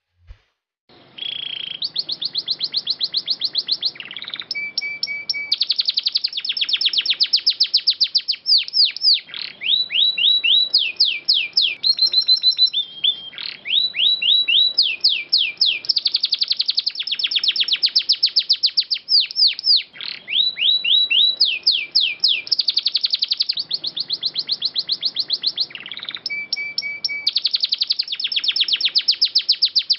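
Domestic canary singing: fast trills of rapidly repeated high notes, switching from one trill to the next every second or two, with a few short breaks. The song starts about a second in.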